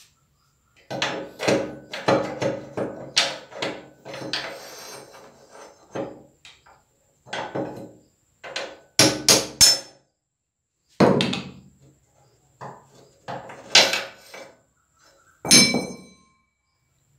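Hammer blows knocking the old, worn steering-head bearing cups out of a motorcycle's head tube: irregular metal strikes in short runs with pauses between. The last strike near the end rings clearly.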